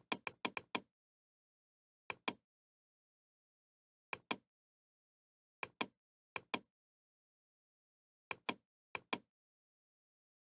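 Computer mouse button clicks. There is a quick run of about six clicks at the start, then single clicks every one to two seconds, each heard as a sharp press and release, with dead silence between.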